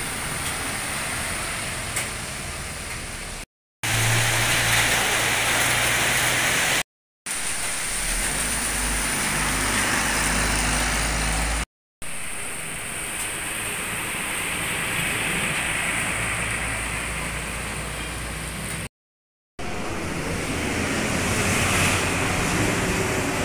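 Large coach buses and road traffic passing close by: diesel engines running and tyres hissing on wet road, with a deeper engine drone about 8 to 11 seconds in. The sound is cut into several short clips separated by brief moments of silence.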